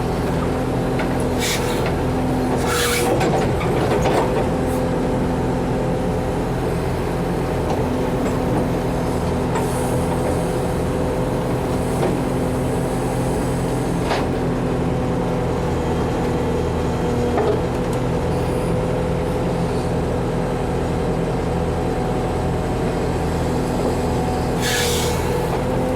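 Backhoe's diesel engine running steadily while it digs a trench, with a few short hisses near the start and near the end and an occasional sharp knock.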